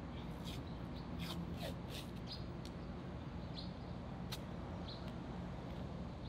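Cloth tape being pulled off the roll and torn: a few short ripping sounds in the first two seconds, then a single sharp click, over a steady low hum with a few faint high chirps.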